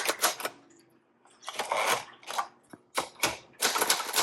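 1961 Royal Signet manual portable typewriter typing: a quick run of keystrokes, a pause of about a second, a few scattered strikes and softer rustling, then rapid keystrokes again near the end. The keys are being tested, and they work without stiffness or hesitation.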